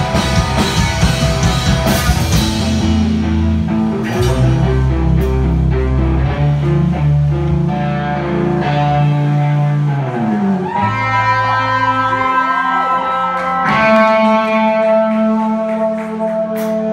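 Live pop-punk band with electric guitars, bass and drums. The drums stop about two seconds in, then held guitar and bass notes ring out, wavering and bending, with a strong ringing guitar tone near the end as the song closes.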